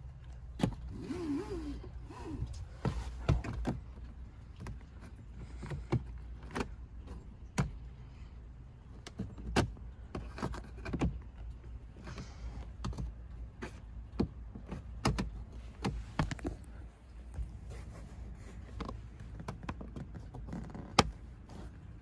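Plastic interior trim of a 2014 Dodge Grand Caravan being handled: repeated clicks and knocks from panel handles, latches and a twist knob on a cargo-area trim panel. A low steady rumble runs underneath, with a brief squeak about a second in.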